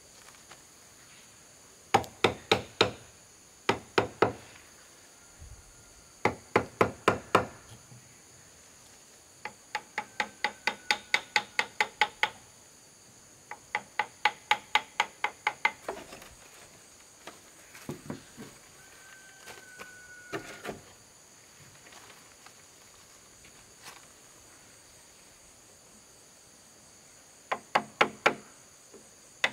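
A hammer striking in quick runs of blows, about five a second, with pauses between the runs. Insects shrill steadily in the background.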